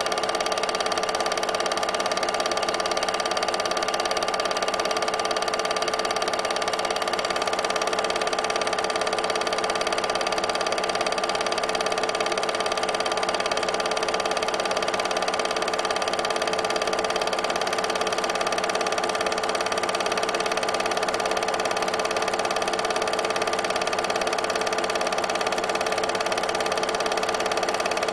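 Steady mechanical running of an 8mm film projector, a constant whirr with several fixed tones that never changes.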